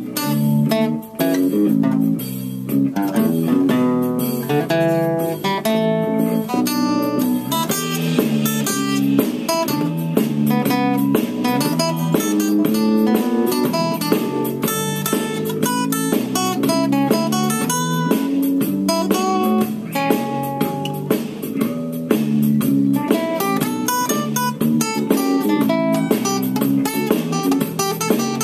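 Acoustic guitar playing blues riffs: runs of single plucked notes mixed with strummed chords, without pause.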